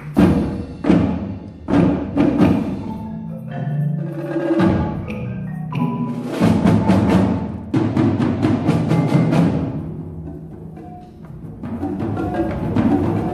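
Percussion ensemble playing live, marimba and other mallet instruments over drums. A fast run of sharp strikes comes about six seconds in; it grows quieter around ten seconds, then builds again near the end.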